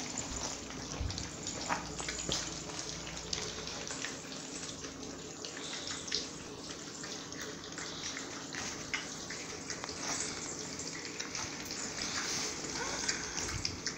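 A litter of three-week-old puppies lapping and slurping a wet mash of milk and cottage cheese from a shared dish, a steady run of small wet smacks and clicks.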